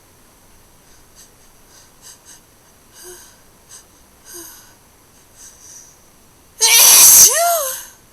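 A person taking several short, soft breaths, then about six and a half seconds in one loud, hard sneeze that ends in a voiced cry rising and then falling in pitch.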